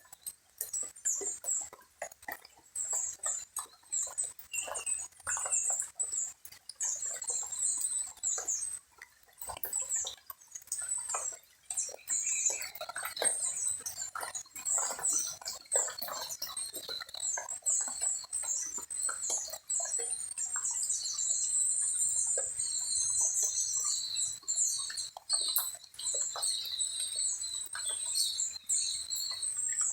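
Many small birds chirping, a busy chorus of rapid, short, high-pitched calls with scattered lower chips and clicks.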